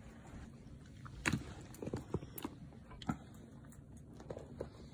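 A husky rummaging in and mouthing a plush puzzle toy: scattered sharp clicks and short rustles, the loudest about a second in, with a few more over the next two seconds and softer ones near the end.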